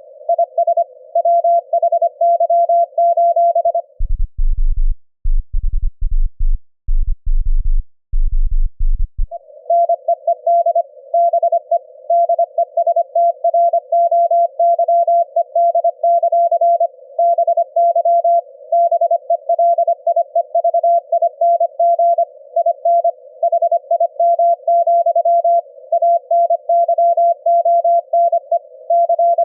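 Morse code at 25 words per minute, keyed as an on-off beeping note from the SDR receiver. From about four to nine seconds in, the keying is instead heard as a very low buzz, the 25-hertz ELF CW tone itself, before the higher beeping note returns.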